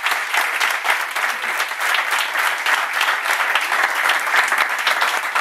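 Audience of several dozen people applauding steadily.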